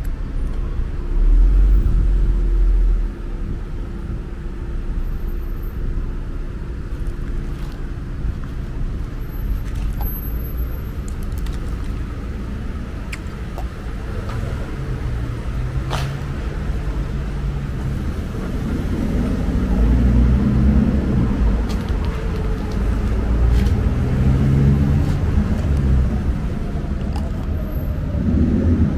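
City street traffic: car and truck engines running and passing, a steady low rumble. A louder low rumble comes about one to three seconds in.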